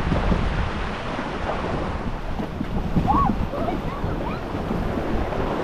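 Rushing, splashing water with wind buffeting the microphone, a steady low rumbling noise; a few faint high cries come through in the distance about three seconds in.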